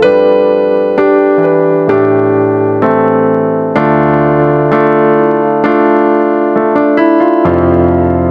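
Piano keyboard playing sustained chords in a slow, steady rhythm, striking a new chord about once a second.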